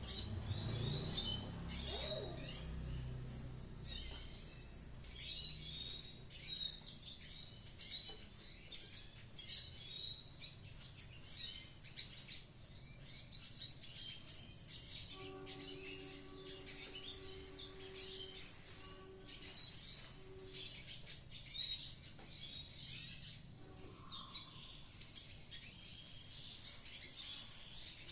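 Red siskins twittering busily, a continuous run of short high chirps and warbles. A steady humming tone with several pitches joins in for about six seconds past the middle.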